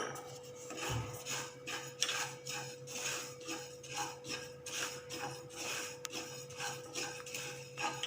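A spatula stirring whole spices (coriander seeds, cumin and shahjeera) around a dry pan while they are dry-roasted, an even scraping rattle of about two strokes a second over a faint steady hum.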